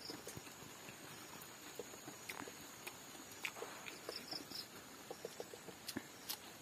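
Faint eating sounds of a man chewing a mouthful of silkworm pupae and rice: irregular small mouth clicks and smacks, coming more often near the end.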